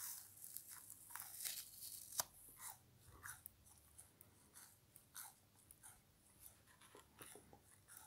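Frozen sponge crunching and crackling as it is crushed, the ice in it giving a dense run of quiet, close, sharp crackles. The crackles are busiest in the first few seconds, with one louder snap about two seconds in, and then thin out to scattered ones.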